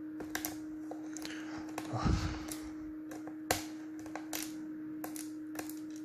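Light clicks and ticks of a small Phillips screwdriver turning in a screw on a laptop's plastic bottom cover, the screw spinning in place rather than backing out. A dull knock comes about two seconds in, and a steady hum runs underneath.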